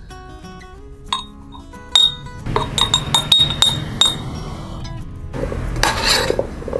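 Metal spoon clinking against a glass jar as chopped pickle vegetables are spooned in, with a run of quick clinks between about two and four seconds in, then the spoon scraping and stirring through the vegetables in the bowl near the end. Soft instrumental music plays underneath.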